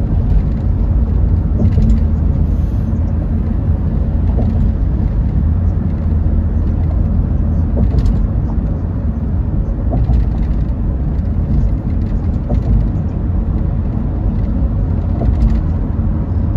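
Steady low rumble of a car driving at highway speed, heard from inside the cabin: tyre and engine noise, with a faint tap now and then.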